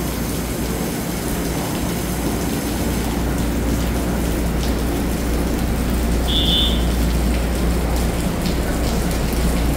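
Steady hum and rushing noise of an EMU3000 electric trainset standing at the platform with its doors open, with rain falling. A short high beep sounds about six seconds in.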